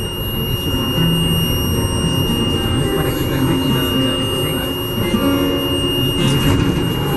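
Inside an R62A subway car rolling slowly into a station at about 2 mph, with the car's emergency alarm sounding one steady high tone over the train's running noise. The alarm was apparently set off by someone lifting the cover of the emergency brake.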